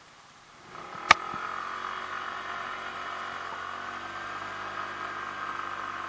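Genuine Buddy 125 scooter's four-stroke single-cylinder engine pulling away, coming up to a steady drone about a second in as the scooter gets under way. A single sharp click comes just after the engine picks up.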